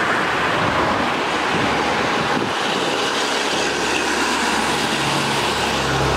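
Steady rushing noise of road traffic, with a low engine drone growing louder over the last couple of seconds.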